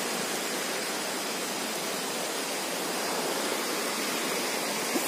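Steady rushing of river water flowing nearby.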